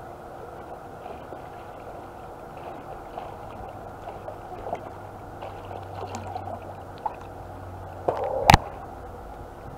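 Muffled pool water sloshing and gurgling against a camera held at the water surface, with small bubbly ticks, as a swimmer comes toward it underwater. About eight seconds in, a splash and one sharp knock as she surfaces right at the camera.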